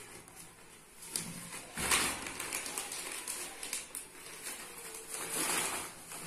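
Fabric tripod carry bag rustling as a tripod is drawn out of it by hand, in uneven bursts, loudest about two seconds in and again near the end, with a few small clicks of handling.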